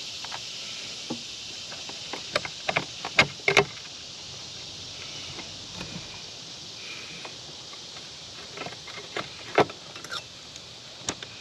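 Scattered sharp clicks and light knocks of hands working inside a Mach 8 rooftop RV air conditioner, handling its wiring and the old run capacitor, over a steady high hiss. The clicks come in two clusters, the louder ones around three seconds in and again after nine seconds.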